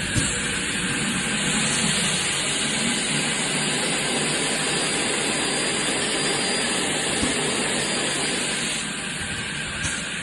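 Emmegi Classic Orion 450 twin-head mitre saw running with a steady whirring hiss. A short click sounds just after the start and another near the end.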